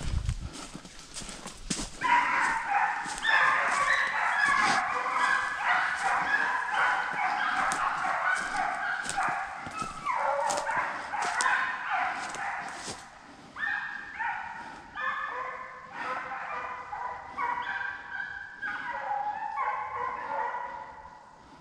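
Footsteps crunching through dry leaf litter, then from about two seconds in a pack of deer-drive hounds baying together in many overlapping cries. After about thirteen seconds the chorus thins into separate bays, and it fades near the end.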